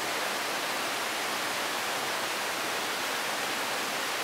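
A steady, even rushing hiss like running water, with no change in level and nothing else standing out.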